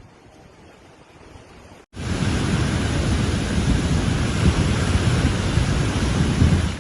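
Loud, steady rushing noise that starts abruptly about two seconds in, after a faint, quiet stretch.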